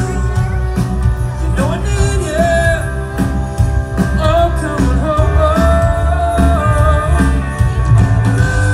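Music: a song with a sung melody over a band with a strong bass.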